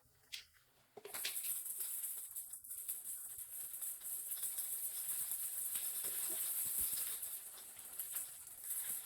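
Hot oil sizzling and crackling in a pan, starting suddenly about a second in after a light click, as food goes into the oil, and carrying on steadily.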